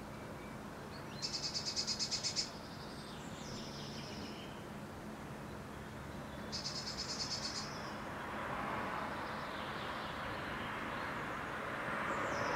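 A small songbird sings two fast trills of evenly repeated high notes, each lasting about a second: the first about a second in, a softer one about six and a half seconds in, with a few fainter notes between and near the end. Under it, a steady background noise grows louder in the second half.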